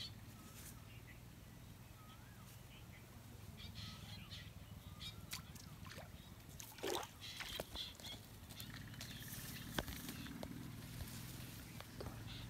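Quiet pondside ambience: short, wavering bird chirps repeat every second or so in the first few seconds. Scattered rustling and a few sharp small clicks come from the bamboo fishing line and plants being handled.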